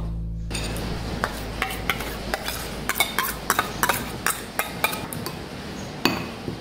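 A metal spoon clinking and scraping against a small metal dish and a glass bowl, in many quick irregular taps, as melted butter is scraped out and stirred into crushed cookie crumbs. Background music fades out at the start.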